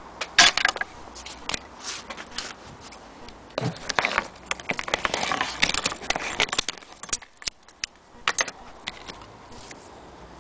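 Handling noise: irregular clicks, knocks and rattling as objects are moved about, with a denser stretch of clatter from about three and a half to six and a half seconds in.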